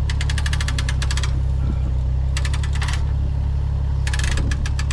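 A small engine running steadily under three spells of rapid, even metallic clicking, about ten clicks a second: a ratchet being wound to move a log up onto the sawmill.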